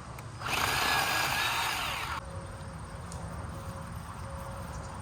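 Harbor Freight cordless battery chainsaw run in one burst of just under two seconds, starting about half a second in and cutting off suddenly.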